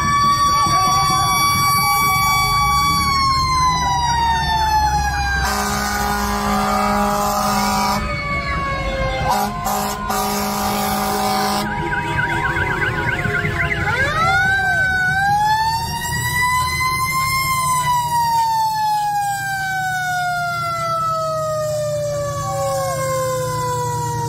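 Fire engine siren wailing: a held tone that slowly falls in pitch, interrupted by two long blasts of a horn, then winding up again about halfway through and falling slowly away.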